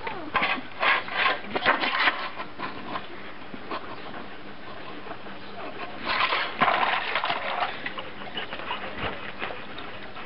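A dog splashing the water in a rubber tub with its front paws, in quick splashes: a spell at the start and another about six seconds in.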